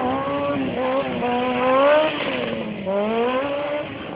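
Stunt motorcycle engine revving hard, its pitch climbing and falling several times, loudest about two seconds in, with a dip near the end before it climbs again.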